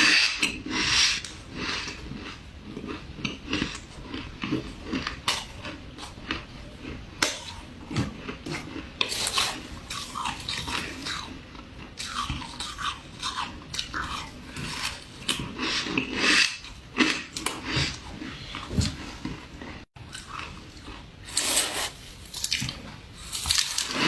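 Close-miked mouth sounds of squeaky ice being bitten and chewed: repeated irregular crunches and chewing.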